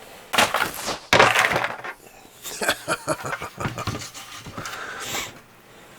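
Handling noises: two loud bursts of rustling within the first two seconds, then a string of small clicks and knocks.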